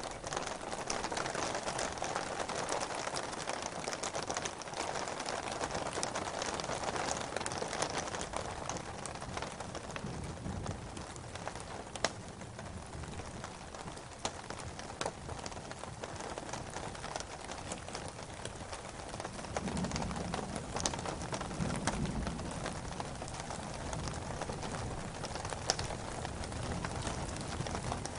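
Steady rain falling, an even hiss with scattered sharper drop ticks; a low rumble swells briefly about two-thirds of the way through.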